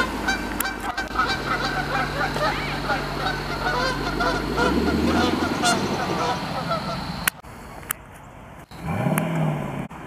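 Canada geese honking, many calls overlapping in rapid succession during a squabble between geese, cutting off abruptly about seven seconds in. Near the end, a short car engine rev rises and falls in pitch.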